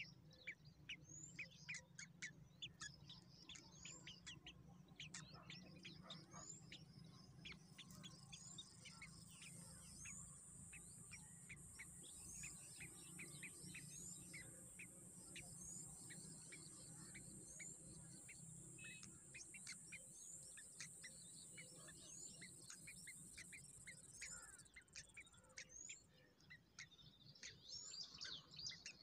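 Faint bird chirping: many quick short chirps and a short rising note repeated about once a second. A steady high-pitched insect buzz joins about a quarter of the way in and stops a few seconds before the end.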